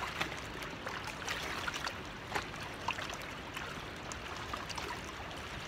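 River water lapping and trickling against a rocky bank, a steady wash with a few faint light clicks scattered through it.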